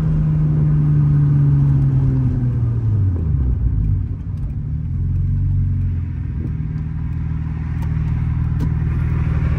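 Inside the cabin of a 2001 Audi S4 Avant, its built 2.7-litre V6 with a big single turbo runs while driving. The engine note falls steadily over the first few seconds as the car slows, dips briefly around four seconds in, then settles into a steady lower note.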